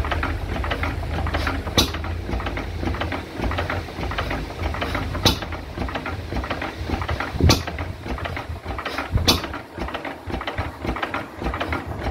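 Vintage Lister 3 hp side-valve, hit-and-miss governed stationary engine running warm at its governed speed. It makes a fast, steady mechanical clatter, with a sharp, louder stroke every two to three seconds.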